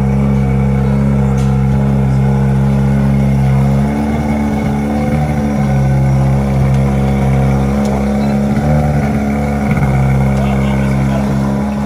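Fire tender's engine running steadily as it drives the pump draining floodwater, its note shifting slightly about four seconds in.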